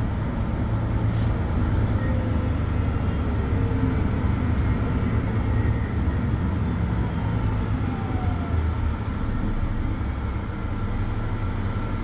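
Mercedes-Benz Citaro C2 city bus with its OM 936 six-cylinder diesel engine idling steadily while standing still, a constant low hum.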